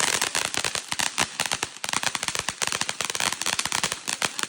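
Consumer fireworks crackling: a rapid, irregular run of many small pops a second, like a string of firecrackers going off.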